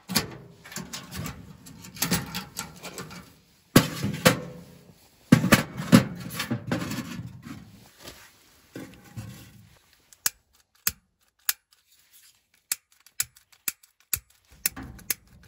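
Knocks, scrapes and rustling of a steel wood stove being opened and split kindling and wood-wool tinder being laid in its firebox, then, from about ten seconds in, a long butane utility lighter's igniter clicking again and again, about twice a second, without catching: the lighter is too cold to light.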